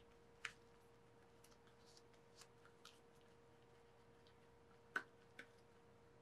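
Near silence: a faint steady room hum with a few soft clicks and taps from gloved hands painting a latex elf ear with makeup, the sharpest tap about five seconds in.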